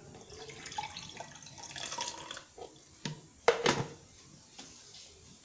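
Freshly squeezed orange juice pouring from a plastic juicer's container into a drinking glass, a soft trickle and splash. A little after three seconds in come two short knocks, the loudest sounds.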